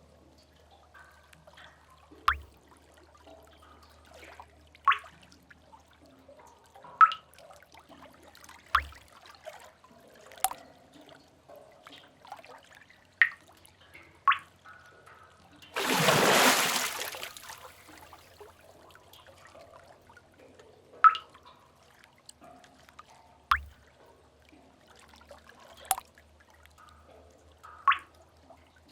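Sea cave ambience: single water drips ring out one at a time every two to three seconds over a faint low rumble. About sixteen seconds in, a louder splash of water swells and dies away over about a second and a half.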